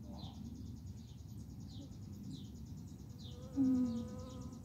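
Insects trilling steadily in the grass, a fast high-pitched pulse, with a short falling chirp repeating about twice a second. About three and a half seconds in comes a brief low hum, the loudest sound, followed by a held tone for about a second.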